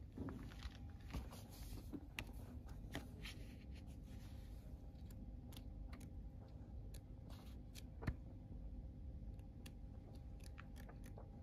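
Faint room sound with a low steady hum, and scattered small clicks and rustles of paper as the pages of a glossy picture book are turned by hand.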